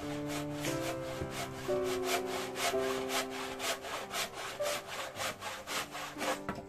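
Handsaw cutting through a wooden board in quick, even strokes, about four a second, stopping abruptly near the end.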